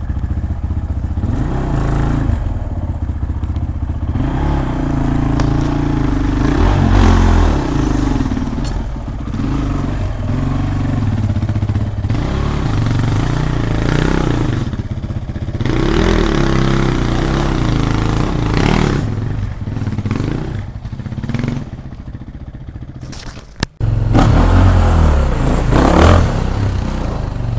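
Dirt bike engine revving hard in repeated bursts, its pitch rising and falling, as the bike claws up rock ledges. The sound breaks off briefly about three-quarters of the way through, then the revving resumes.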